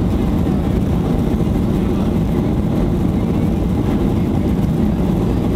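Steady low rumble inside the cabin of a Boeing 737-800, its CFM56 jet engines running while the airliner rolls on the runway before take-off.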